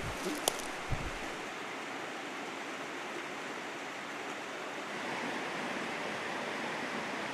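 Mountain trout stream rushing steadily. A few soft knocks and a click sound in the first second.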